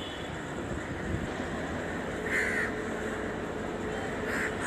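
Crows cawing, two short harsh calls about a second apart in time and two seconds apart in spacing, over a low steady background rumble of distant trains and traffic.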